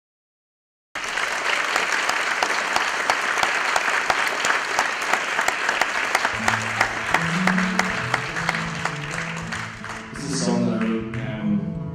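Audience applauding, starting suddenly about a second in and thinning out over the last few seconds. Quiet acoustic guitar notes start partway through, and a man's voice comes in near the end.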